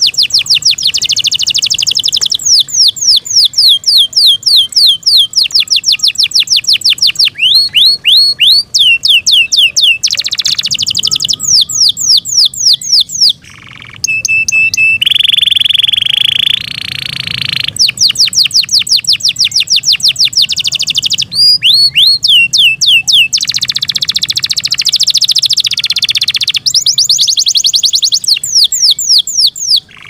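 Yorkshire canary singing: fast trills of rapidly repeated falling whistled notes, strung into phrases with brief pauses, and a few long held whistles about halfway through.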